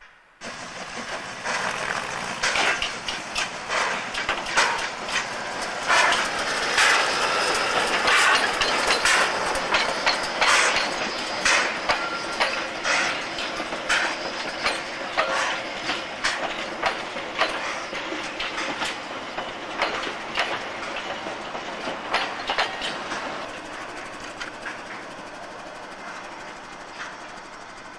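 Narrow-gauge steam train passing close by, its wheels clicking and knocking over rail joints and points. The sound comes in suddenly, is loudest in the first half and fades slowly as the train moves away.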